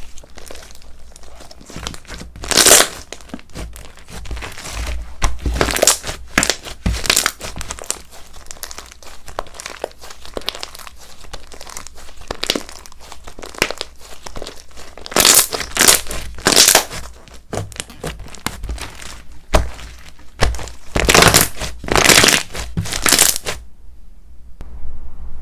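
Slime being squeezed, stretched and pressed by hand, making crinkly crackling and popping sounds, with louder bursts of crackles coming in clusters.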